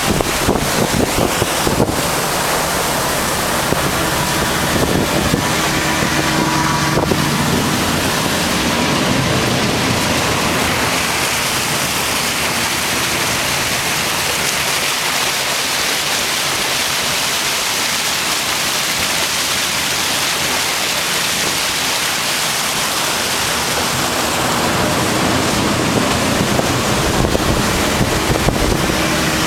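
Steady wind blowing over the microphone and sea water rushing past the hull of a motor ship under way. A low engine hum shows through in the first several seconds and again near the end.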